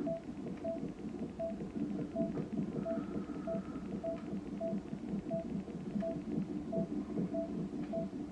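Hospital monitoring equipment: a fetal heart monitor's amplified heartbeat sound pulsing rapidly, with a short electronic monitor beep repeating regularly a little under twice a second.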